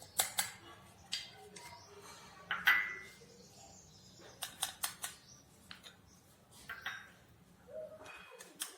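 A mixing utensil clinking and scraping against a vessel as powdered herbs are stirred together: scattered clicks and taps, the loudest a ringing clink about two and a half seconds in.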